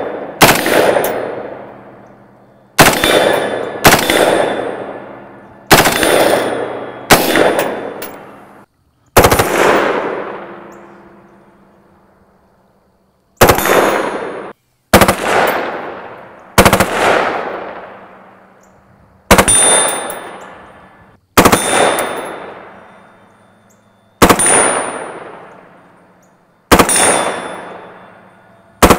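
Colt M16 rifle firing 5.56 mm 62-grain steel-core penetrator rounds in fully automatic: about a dozen short bursts, one every one to three seconds, each trailing off in an echo. A few bursts leave a high metallic ring.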